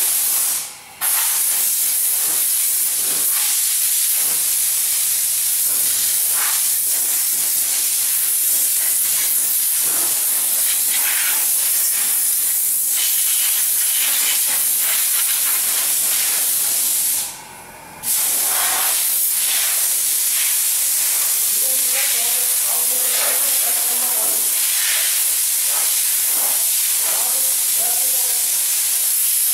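Compressed-air blow gun on an air hose hissing steadily as it blasts fine dust off a car's body. The air cuts off briefly twice, about a second in and again about seventeen seconds in.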